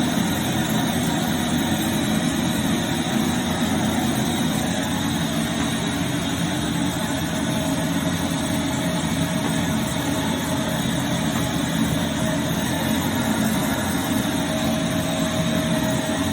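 Vytronix CYL01 bagless cylinder vacuum cleaner's 800 W motor running steadily with an even rushing noise, a faint thin whine becoming clearer in the second half.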